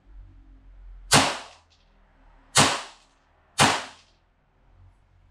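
Tokyo Marui Hi-Capa 5.1 D.O.R. gas blowback airsoft pistol firing three shots at a BB trap target: sharp cracks about a second in, then two more about a second apart, each with a short ringing tail.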